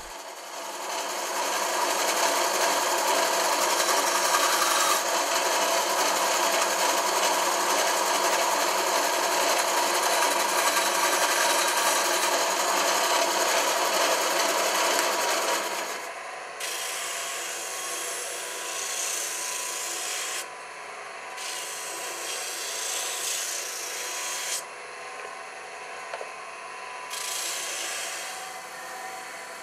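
Bandsaw running and cutting small turned wooden handles, a loud, dense, steady noise. About halfway through it gives way to a quieter motor hum, with a sanding disc rasping against the handle ends; the hiss stops and starts several times as each end is pressed on and lifted off.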